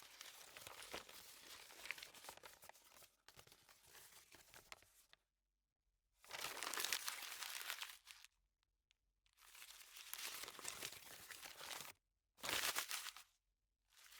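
Sheets of paper being shuffled, a dry rustling that comes in separate bursts of a few seconds with silent gaps between them, the last burst short.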